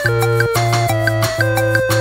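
Music with a steady beat, its bass and chord notes changing about every half second.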